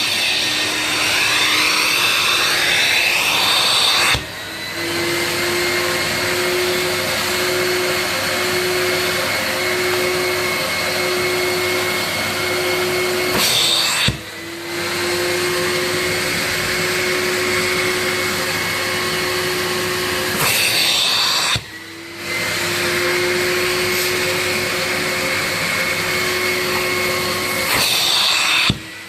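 Portotecnica wet/dry vacuum running with a steady motor hum. Its sound drops suddenly for a moment about every seven to eight seconds, four times in all, then comes back.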